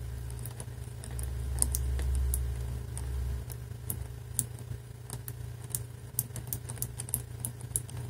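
Number wheels of a Masterlock 651 brass combination padlock being thumbed round against a knife blade held in the gap, giving small irregular clicks while the blade feels each wheel for its notch. A low rumble runs from about one second in to about three and a half seconds in.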